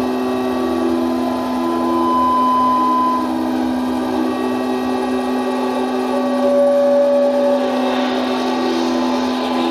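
Speech that has been played back into a room and re-recorded many times over, dissolved into the room's own resonant frequencies. A steady low hum runs under ringing tones that swell and fade in the uneven rhythm of the lost words; no words can be made out.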